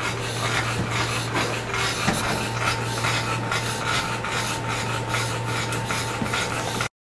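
Continuous rustling and rubbing with scattered small crackles, over a steady low hum, as cloth and fur are handled close to the microphone. A faint steady tone joins about two seconds in, and all of it cuts off suddenly near the end.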